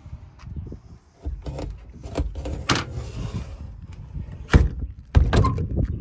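A school bus's hinged rear emergency door being swung shut. A few clicks and rattles lead to two heavy slams near the end as the door closes and latches.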